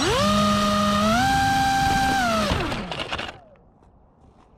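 Brushless motor spinning the sno-speeder's 6-inch three-bladed propeller in its cowl. It winds up sharply to a steady whine, steps up in pitch about a second in, then spools down and stops near three seconds in.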